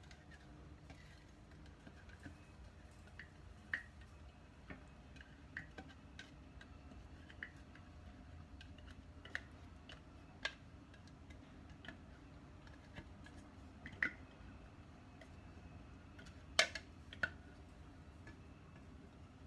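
Scattered light clicks and taps of kitchen utensils during food preparation, about a dozen at irregular intervals with the loudest two near the end, over a low steady hum.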